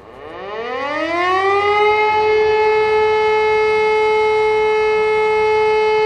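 E57 electromechanical air-raid siren starting up: its pitch rises steeply for about two seconds as it spins up, then holds one steady tone. This is the continuous all-clear (Entwarnung) signal of a siren test.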